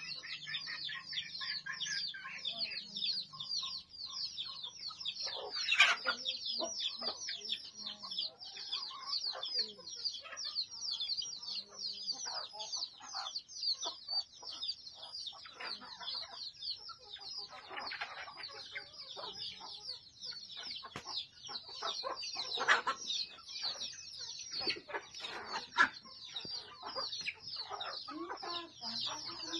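Backyard chickens clucking and calling over a constant, dense high-pitched chirping. The loudest calls come about six seconds in and twice near the end.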